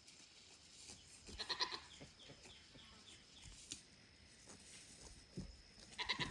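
A goat bleating twice, short quavering calls: one about a second and a half in and another near the end.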